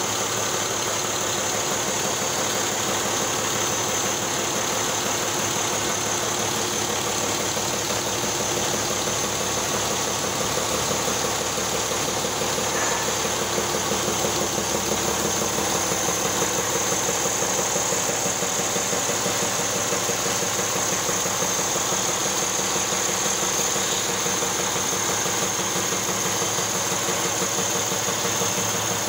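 Caterpillar 3306DI turbocharged inline-six diesel engine idling steadily with an even, rapid firing pulse.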